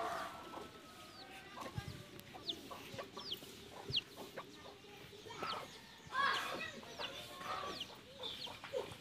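Domestic chickens clucking, with short high falling chirps scattered through and a louder burst of calls about six seconds in. A few sharp knocks of a blade cutting vegetables over a steel bowl are heard between them.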